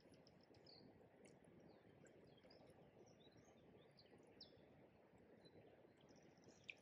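Near silence: small birds chirping and twittering, with one sharper chirp near the end, over a faint low rush of river water.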